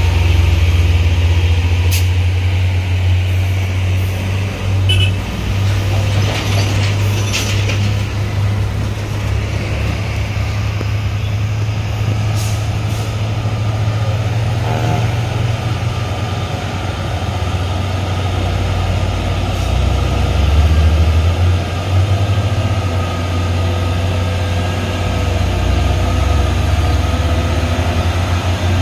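Heavy diesel truck engines pulling under load up a steep grade: a steady low drone whose pitch shifts now and then, with a few brief sharp hisses or clicks.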